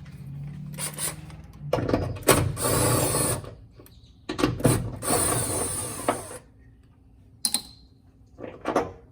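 Battery-powered ratchet running in two bursts of about two seconds each, driving out a hood clamp bolt, followed by a few short clicks near the end.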